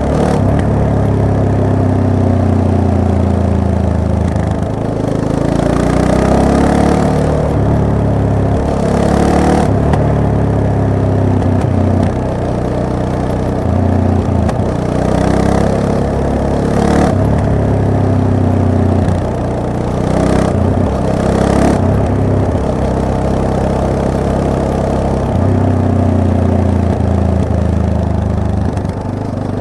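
Yamaha MT-03 motorcycle engine on its stock exhaust, running under way. Its pitch climbs and then drops back in steps several times as the rider rolls the throttle on and off and shifts gears.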